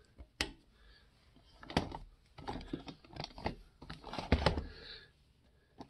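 Irregular clicks and light knocks of hand-held hard plastic and metal parts being handled, with a louder thump about four and a half seconds in.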